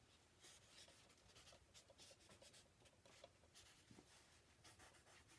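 Quiet scratchy rubbing strokes of a paper towel worked over the wet surface of an oil painting, coming several times at uneven intervals.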